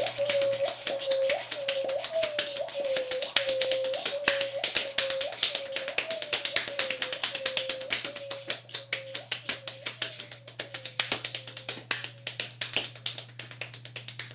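Multi-tracked one-man-band mix of body percussion and beatboxing: rapid finger snaps, taps and mouth clicks over a wordless voice repeating a short note with a quick upward slide about every two-thirds of a second. The mix grows quieter from about halfway, and the voice drops out near the end while the clicks go on.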